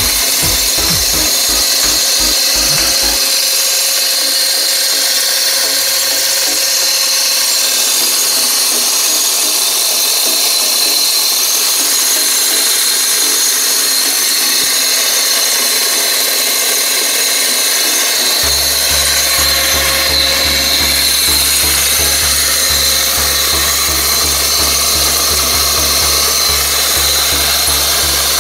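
Small 24-volt electric motor running steadily, driving the chain of a homemade pruning saw, with background music.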